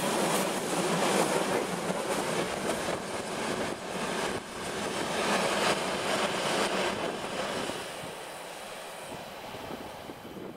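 Freight train hopper wagons rolling past on the rails, their wheels knocking and clattering. The noise fades over the last few seconds as the end of the train disappears into the tunnel.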